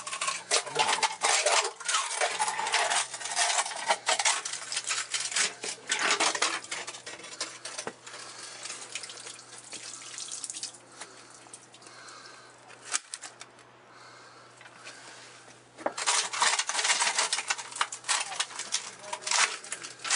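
Drain rods with a plunger disc clattering, scraping and splashing in a drain chamber, working at a U-bend blocked with effluent and gravel. The clatter eases off for several seconds about midway, then starts again near the end.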